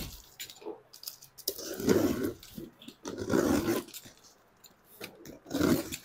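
Box cutter slicing through packing tape on a cardboard carton: three noisy strokes of about a second each, with the cardboard rustling.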